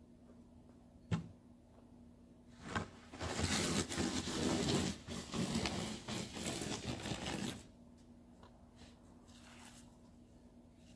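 A sharp knock about a second in, then a loud, rough scraping noise lasting about four seconds, with a faint steady hum underneath.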